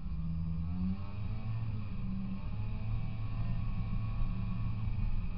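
Snowmobile engine running under way, its pitch rising over the first second or so as it speeds up, then holding steady.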